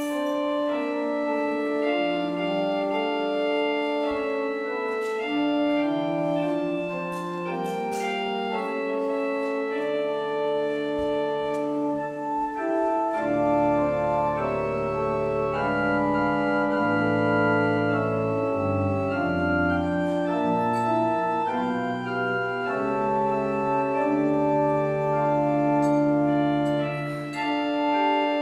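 Organ playing slow sustained chords, the postlude after the benediction, with deep bass pedal notes coming in about halfway through.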